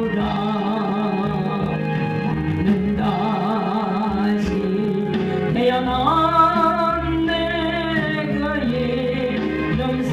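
Music with a singing voice, which holds one long, wavering note in the middle.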